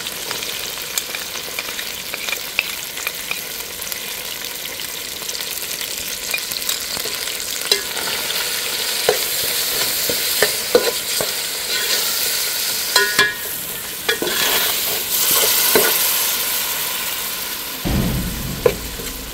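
Curry base of onions, tomato, spices and ginger-garlic paste sizzling in hot oil in a metal pot, with a metal spoon stirring and scraping and now and then clicking against the pot. A dull bump comes near the end.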